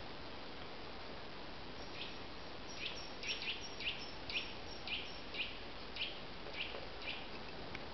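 A small bird calling: a run of about a dozen short, sharp notes, each dropping in pitch, about two a second, starting about two seconds in. A steady hiss of background noise lies under it.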